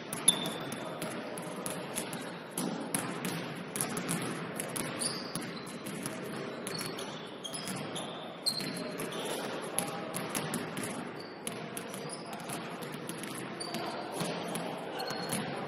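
Basketball bouncing on a hardwood gym floor during play, many sharp knocks with a loud one about a third of a second in, mixed with short high squeaks of sneakers on the court, all echoing in a large hall.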